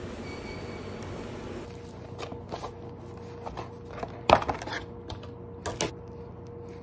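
A steady hiss of background noise gives way, under two seconds in, to a series of clicks and taps from a clear plastic lid and a paper takeout box of kimbap being handled, the sharpest knock a little past the middle, over a steady low room hum.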